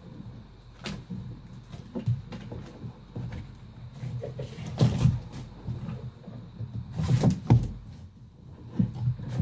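Plastic Lego Technic pieces clicking and knocking irregularly as the model and its figure are handled, with the loudest knocks about five and seven seconds in.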